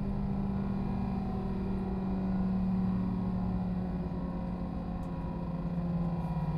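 Underfloor diesel engine of a Class 172 Turbostar diesel multiple unit running under way, heard inside the train together with the rumble of the running gear: a steady drone whose low note slowly falls in pitch.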